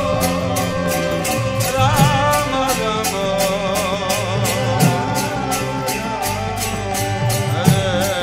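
Kirtan: a voice singing a devotional chant over hand cymbals (karatals) struck steadily about three times a second, with a few heavier drum strokes.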